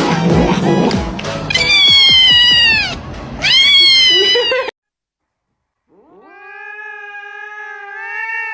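Two loud cat yowls, each falling in pitch, over music, then a short silence and a long, drawn-out wavering cat yowl starting about six seconds in.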